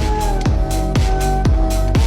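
Electronic dance music with a kick drum about twice a second, hi-hats between the beats and sustained synth chords that bend in pitch near the start.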